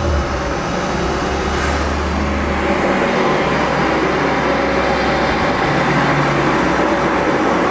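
Turbocharged Honda B20B four-cylinder idling on a chassis dyno after a run, its low note fading about three seconds in, under the steady rush of a large cooling fan.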